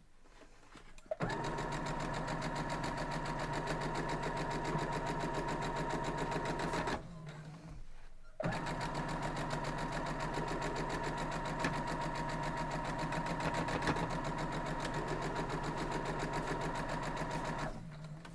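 Electric domestic sewing machine stitching a seam at a steady speed, a fast run of needle strokes over a steady motor whine. It starts about a second in, stops for about a second and a half near the middle, then runs again until just before the end.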